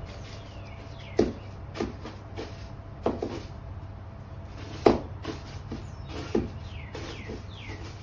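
A long-handled broom sweeping a porch ceiling, its head knocking against the boards with five or so sharp knocks, the loudest about halfway through. A few short chirps falling in pitch come in between.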